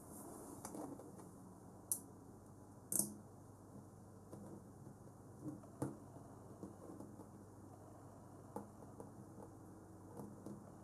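Small neodymium magnet balls clicking against each other as a pentagon of buckyballs is pressed onto a larger pentagon and squeezed into shape: a few sharp clicks, the loudest two about two and three seconds in, with fainter ticks later.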